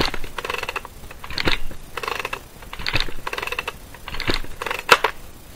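Ryobi gas chainsaw's recoil starter pulled several times in quick succession, the rope whirring out and rewinding in short bursts, with a sharp click near the end. The engine does not fire: these are priming pulls with the choke out, drawing fuel into the combustion chamber.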